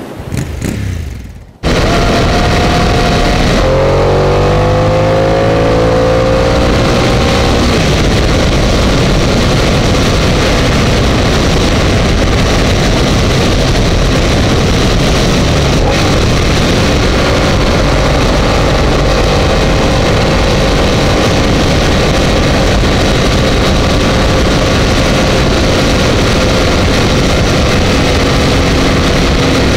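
Ducati Multistrada 1200 S L-twin engine running at road speed under loud, steady wind rush on the on-bike camera's microphone. The engine pitch glides up a few seconds in, then holds fairly steady.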